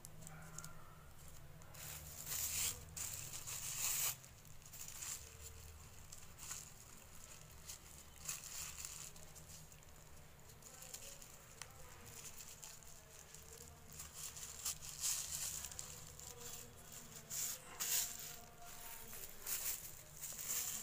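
Plastic-bag yarn crinkling and rustling in irregular bursts as it is pulled through and hooked into a crocheted plastic doormat, over a steady low hum.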